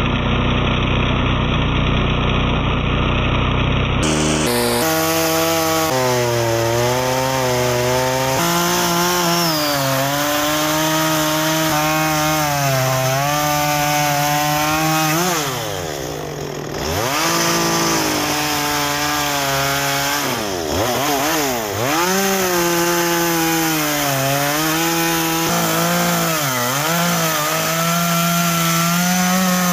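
Small Stihl chainsaw cutting into a large log, its engine speed rising and falling with the load. The revs drop sharply and climb back about halfway through, and twice more in the second half.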